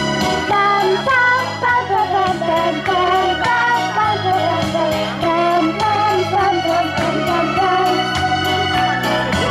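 Young girls singing a cheerful children's song through microphones over amplified backing music with a steady, repeating bass and keyboard line.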